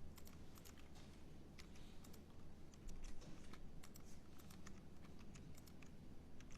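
Computer keyboard typing: faint, irregular keystroke clicks, with a low hum under them.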